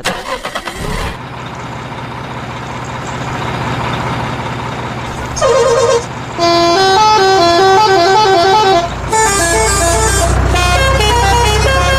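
Truck sound effects: an engine starting and running with a rising rumble and a steady low hum, then a short horn honk about five seconds in, followed by a multi-tone musical horn, telolet style, playing a quick stepped tune, broken near the end by a brief hiss like an air brake.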